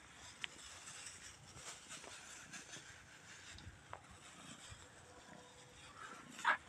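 Thin plastic bag crinkling faintly as a hand rummages in it for food, with a couple of sharp little clicks. A stray cat gives one short, loud meow near the end.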